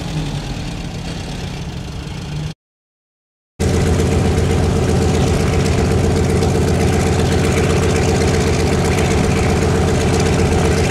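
Antonov An-2 biplane's nine-cylinder radial engine running steadily on the ground, loud and even. It starts abruptly after about a second of dead silence, before which a quieter vehicle engine hum is heard.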